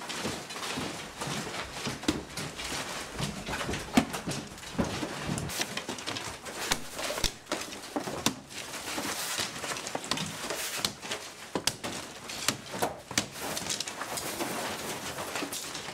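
Hand demolition inside a house: a hammer knocking at wall framing while wall material is pried and torn away, with irregular knocks, cracks and clatter throughout.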